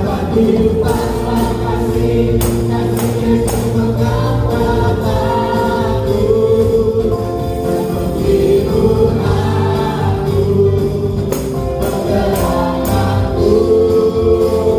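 A choir singing a worship song with instrumental accompaniment and sharp percussion strikes.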